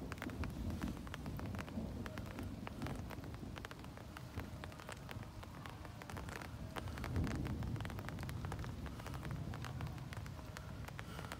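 Rain falling, with many individual drops tapping sharply, over a low rumble of thunder that swells about a second in and again around seven seconds in.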